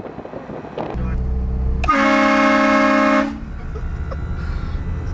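A HornBlasters Shocker 228VX air train horn blasting once, a loud chord of several steady tones lasting about a second and a half, about two seconds in. A low rumble starts about a second in and runs on beneath and after it.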